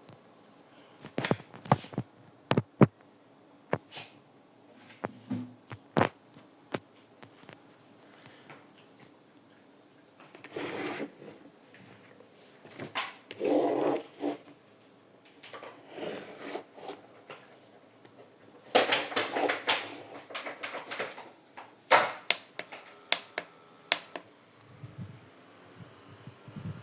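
Scattered sharp clicks and knocks with short rustling, scraping noises, as of objects being handled.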